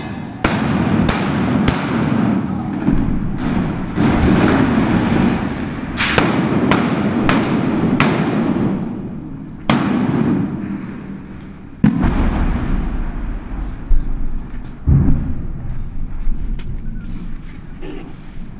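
Gunfire inside a large concrete hall: about ten sharp rifle shots in an irregular series, each echoing. Three come in quick succession near the start, four more follow about six seconds in, and the rest are spaced wider through the second half.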